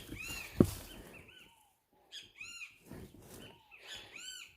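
A wild bird calling in a run of short, arched chirps, several in quick clusters. A single sharp knock comes about half a second in.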